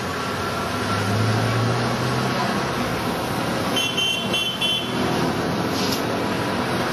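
Road traffic of motorcycles, cars and auto-rickshaws running past in a steady wash of engine and tyre noise, with an engine drone passing about a second in. Around the middle comes a quick run of short high beeps, from a vehicle horn.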